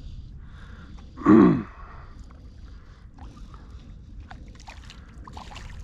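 Small, scattered splashes of shallow water under a steady low rumble. A short vocal exclamation falls in pitch about a second in and is the loudest sound.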